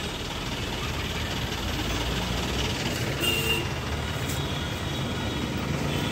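Road traffic in a slow jam: vehicle engines running, with a bus close by, and a short high tone about three seconds in.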